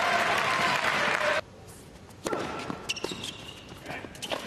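Arena crowd applauding and cheering, cut off abruptly about a second and a half in. Then a tennis ball is bounced on the hard court several times before a serve, with a few squeaks of tennis shoes on the court.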